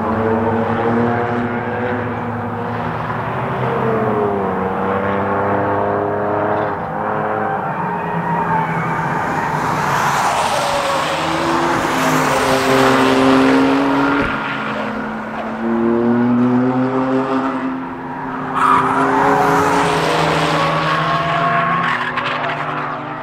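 Several track-day cars driven hard through a circuit corner one after another, their engines and exhausts rising and falling in pitch as they brake and accelerate. Tyre noise hisses over them around the middle and again near the end.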